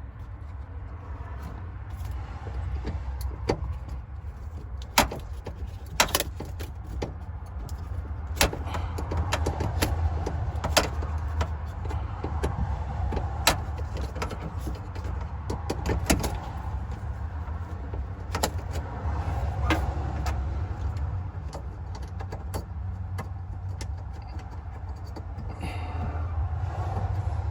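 Hand tools and metal parts clicking and knocking at irregular intervals during work on a car, with several sharper knocks in the first half, over a steady low rumble.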